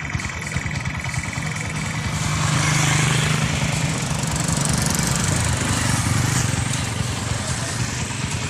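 Motorcycle tricycle with a sidecar passing close by, its small engine running. The engine and tyre noise swell about two seconds in, are loudest around three seconds, and fade over the next few seconds.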